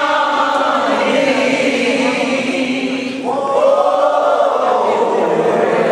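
A group of voices singing a slow church song with long held notes that bend in pitch. The sound dips briefly about three seconds in, then a new phrase starts.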